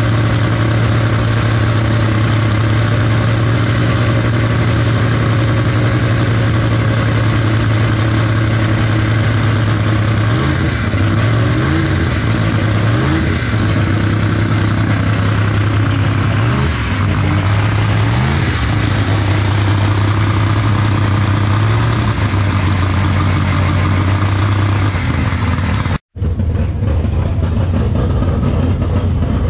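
Car engine idling loudly at a steady low pitch, its pitch dipping and rising a few times in the middle. The sound drops out abruptly for an instant near the end.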